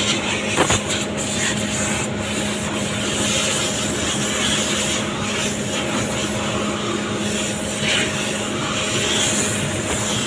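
Air compressor running: a steady hum under an even hiss of air.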